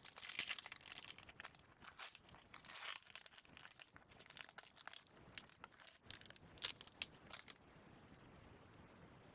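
A trading-card pack's wrapper being crinkled and torn open by hand, an irregular run of rustling and tearing that stops about seven and a half seconds in, followed by a few faint clicks.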